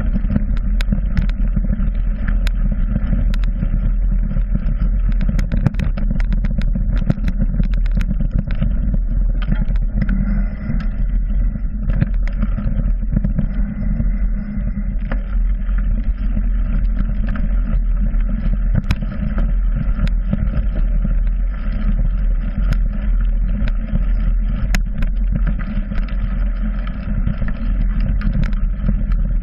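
Riding noise of a mountain bike picked up by a GoPro on its handlebar: a steady low rumble of wind and tyres, with frequent sharp rattles and knocks from the bike and mount over rough ground, most of them in the first third.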